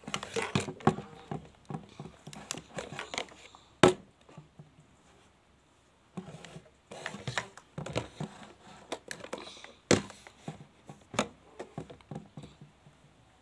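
Plastic toy kitchen pieces clicking and knocking against each other and the table as they are handled, in irregular clusters, with a sharper knock just under four seconds in and another about ten seconds in.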